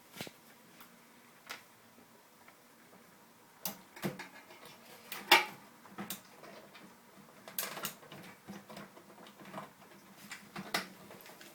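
Scattered small clicks and taps of a screwdriver and small metal parts being handled and fitted inside an opened microwave, with one sharper click about five seconds in.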